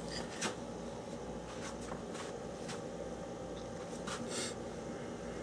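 Laptop booting: a steady low fan hum with a few faint, brief clicks scattered through it.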